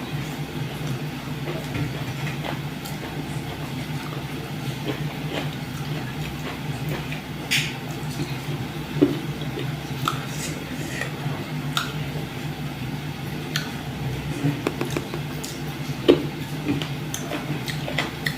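Eating by hand: soft squishing and smacking of buckwheat dhido and chicken curry, with scattered small clicks, over a steady low background hum.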